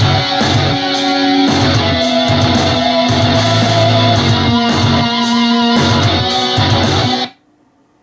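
Guitar-driven rock music with a heavy low beat played through a compact wireless multiroom speaker, cutting off abruptly about seven seconds in.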